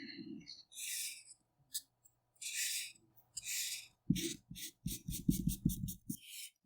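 Colouring-in on paper by hand: three long scratchy strokes, then a fast run of short strokes that also tap against the paper and the desk beneath, stopping shortly before the end.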